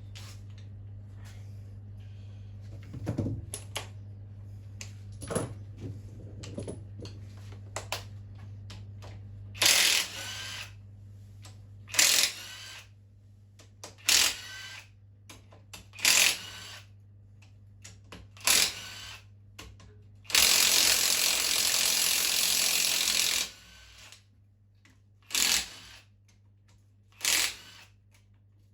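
Socket ratchet clicking in short repeated strokes, with one longer run of clicking in the middle, as the engine's main bearing cap bolts are undone; a few light knocks of the tool and socket come first.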